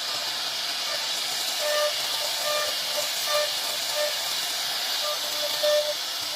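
CNC router cutting a wooden panel: a steady hiss from the spindle and bit, with short tones from the machine coming and going every half second or so.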